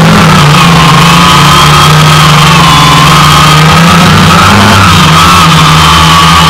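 DJI Phantom quadcopter's motors and propellers whining in flight: a loud, steady whine of several tones that waver slightly in pitch.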